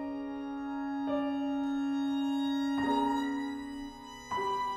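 Pierrot-style chamber ensemble of flute, clarinet, violin, cello and piano playing contemporary classical music live: held chords, with a new chord struck sharply about one, three and four and a half seconds in.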